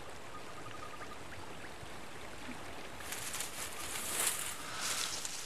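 Outdoor bush ambience: a steady soft hiss with a faint, rapid chirping trill heard twice. Rustling starts about three seconds in and is loudest near four seconds.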